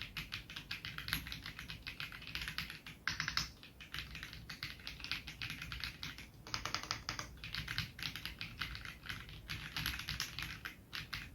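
Typing on a Royal Kludge M75 mechanical keyboard with silver switches: a fast, steady run of key clacks, with two brief denser flurries about three seconds in and just past the middle.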